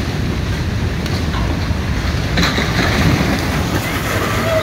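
Flash flood: a torrent of muddy water and debris rushing down a street, a loud steady rumble.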